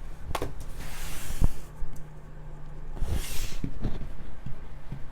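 Tarot cards being handled: two short rustles of cards sliding against each other, with a few sharp taps and clicks, over a low steady hum.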